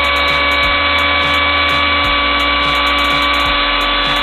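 Makita 1900B electric hand planer running free with no load, its motor and cutter drum giving a steady, even whine. Freshly serviced with its bearings oiled, it runs smoothly and without vibration.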